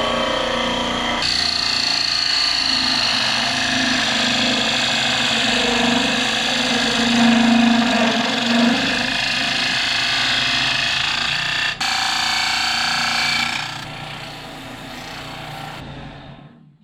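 Wood lathe running with a piece of green quarter-sawn oak being worked on it: a steady motor hum under a loud noisy cutting sound, changing abruptly a couple of times, then fading away and stopping near the end.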